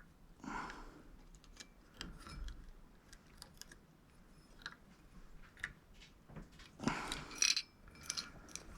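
Faint scattered clicks and light taps of small shower valve parts being handled and fitted together, with a louder rustle about seven seconds in.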